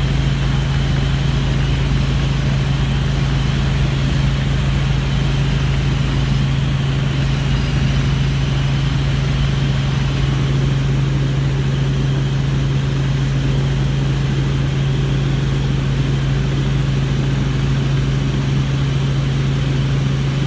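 Helicopter engine and rotor noise heard inside the cabin in flight: a loud, unbroken drone with a strong, constant low hum.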